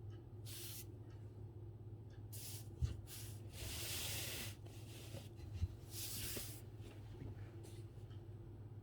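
Calligraphy brush swishing across paper in several strokes of varying length, the longest about a second, with two soft knocks in between.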